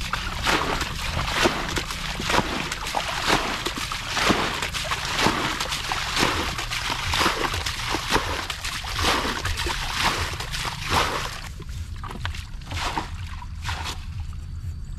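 Irregular splashing and sloshing in shallow muddy water, many quick splashes in a row, the sound of fish being caught by hand in a nearly drained ditch. The splashes thin out after about eleven seconds.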